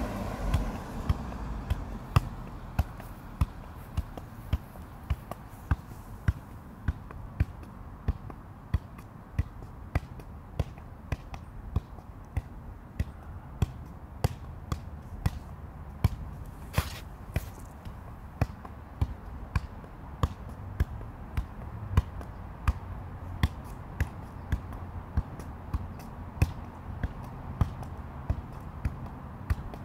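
Soccer ball being juggled, a sharp tap each time a foot or knee strikes it, about twice a second. A car passes near the start and fades away.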